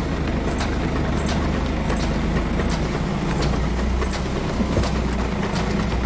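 4WD winch hauling a Toyota FJ40 LandCruiser out of a mud hole under load, with the vehicle's engine running: a steady motor drone with scattered clicks.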